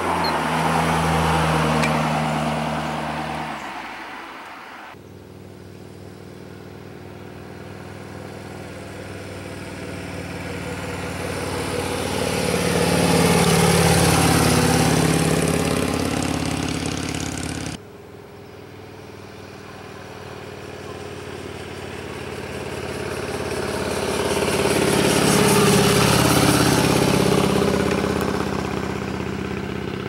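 A run of vehicle pass-bys at about 25 mph, each swelling and fading. A 2009 Corvette Z51's V8 fades away over the first few seconds with a falling engine note, then a 2010 Harley-Davidson Street Glide Screaming Eagle's V-twin passes, loudest about 14 s in with a drop in pitch. After an abrupt change near 18 s, a third vehicle passes, loudest near 26 s.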